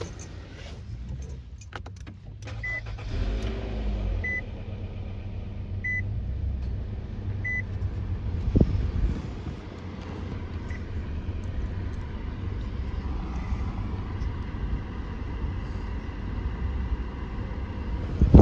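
A car's warning chime beeps four times, about one and a half seconds apart, over a low steady rumble. A thump comes a little before the halfway point, and a loud knock at the very end.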